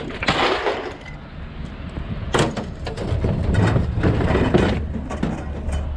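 Scrap metal being handled and dropped into a pickup bed: several clanks and scrapes, a cluster of them about midway, over a low steady rumble that grows louder about halfway through.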